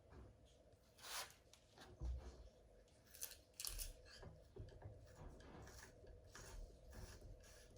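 Faint handling noises from rifle-cleaning gear: a few short, scattered scrapes and rustles as a cleaning tool is picked up and readied.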